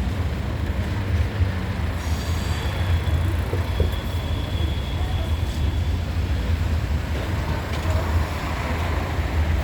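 Freight train of Eas open wagons rolling past with a steady heavy rumble. About two seconds in, a thin high wheel squeal starts and holds for about five seconds.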